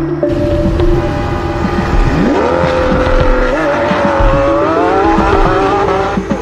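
Car engine running and revving, its pitch climbing about two seconds in and again about four seconds in.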